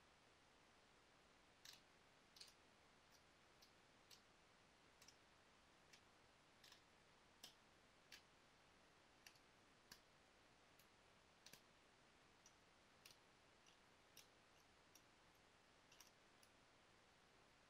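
Faint, sharp, irregular clicks about once a second: small flakes snapping off a Rainy Buttes stone point as it is worked by hand with a flaking tool.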